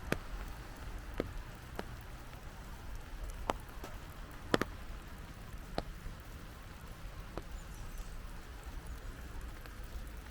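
Light rain falling with a steady soft hiss, with large drops ticking sharply at irregular intervals, about seven times, one louder drop about four and a half seconds in.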